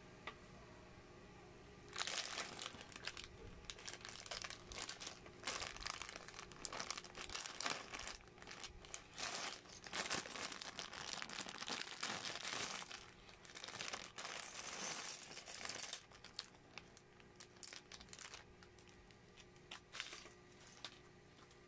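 Clear plastic bag of Lego-style bricks crinkling as it is handled and opened, starting about two seconds in. Near the end it gives way to sparser clicks of the small plastic bricks being spread across the table.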